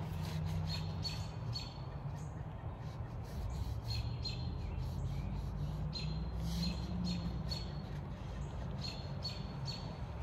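A songbird calling in short, high chirps, in runs of three or four about every two to three seconds, over a steady low rumble.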